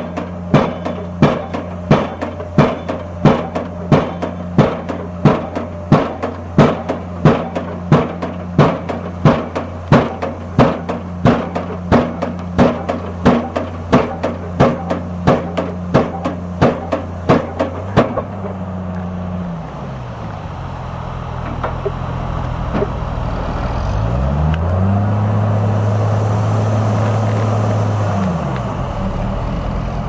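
Junttan PM 25H pile driver's hydraulic impact hammer striking a concrete pile at a steady rate, a little under two blows a second, over the rig's running engine. A little past halfway the blows stop; the engine drops in pitch, then revs up, holds and drops back near the end.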